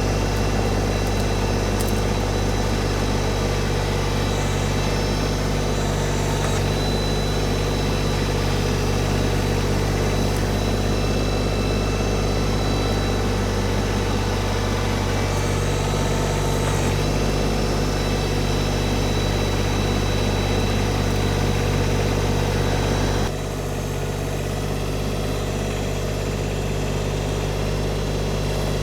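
Engine of a compact tractor running steadily at a constant speed, with an even low drone; about 23 seconds in the level drops suddenly and it carries on a little quieter.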